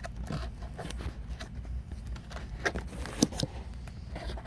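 Handling noise from a cardboard tool-kit box being moved and its flaps worked by hand: a few light taps and scrapes over a low rumble of hands on the phone.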